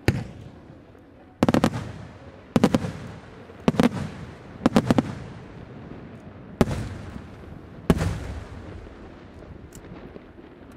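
Aerial firework shells bursting overhead: a string of loud bangs, some coming as quick double or triple cracks, each followed by an echoing rumble that dies away. The bursts thin out in the last few seconds, with only a faint one near the end.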